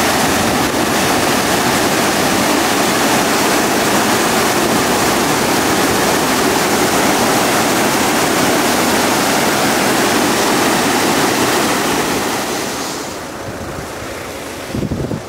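Rain-swollen floodwater rushing loudly through a churning whitewater torrent, a steady roar of water. About thirteen seconds in, it gives way to the quieter, duller rush of a swollen river.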